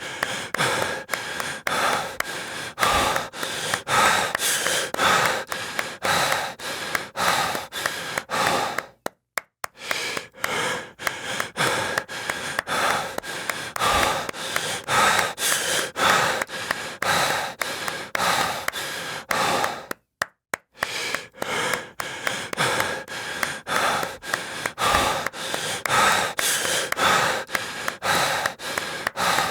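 Heavy breathing mixed with hand claps, about two claps a second, stopping briefly twice.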